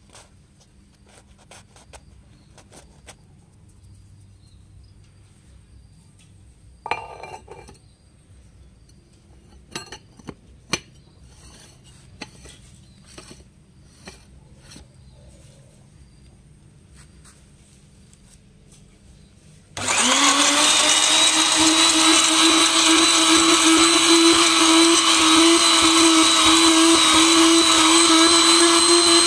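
Quiet clicks and a sharp metal clank as the stainless-steel electric grinder is handled, then near the end its motor switches on, spins up within a moment and runs loud at a steady high whine, grinding a load of jelly candies in powder.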